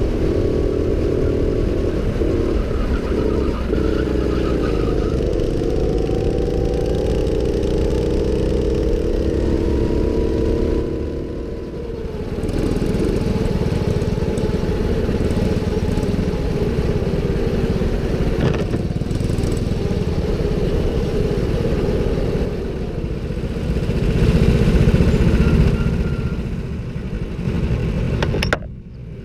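Go-kart engine running hard on track, its pitch rising and falling as the kart speeds up and slows through the corners, heard up close from the kart itself. It dips about a third of the way in and is loudest late on.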